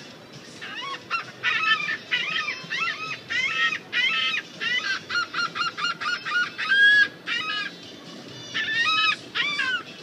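Seagulls calling: a fast run of many short, harsh squawks that bend in pitch, starting about a second in and lasting several seconds. After a brief pause, a few more calls come near the end.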